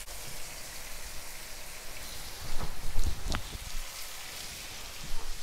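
Butter and olive oil sizzling steadily in a frying pan, with a few louder crackles about halfway through as floured veal slices are laid into the hot fat.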